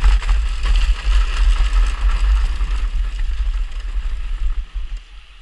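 Heavy wind buffeting on the microphone of a camera moving fast, over a steady rushing hiss, both easing off sharply about four and a half seconds in.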